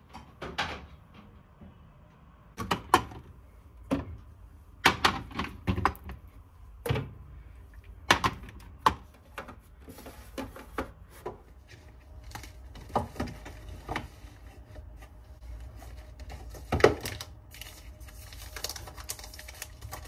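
Groceries being put away into a refrigerator: scattered knocks and clinks as glass jars, cartons and packets are picked up and set down on the shelves and counter, some sharp and loud, at an irregular pace.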